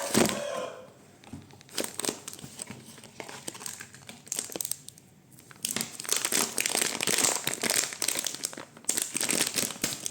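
Packaging being handled and opened: irregular crinkling and rustling of a wrapper, with some tearing. It eases off briefly about halfway through, then gets busier again.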